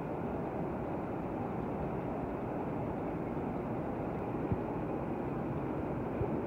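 Steady machine noise, with a sharp knock about four and a half seconds in and a smaller one near the end.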